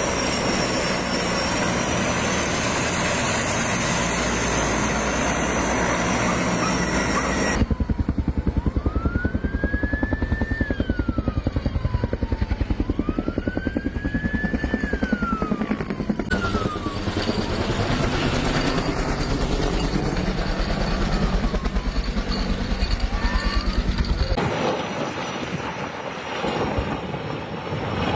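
Helicopter rotor chop, a fast even thudding, with a siren wailing up and down over it for several cycles through the middle. The sound cuts abruptly between shots: a dense noisy roar before the rotor sound, and a quieter stretch near the end.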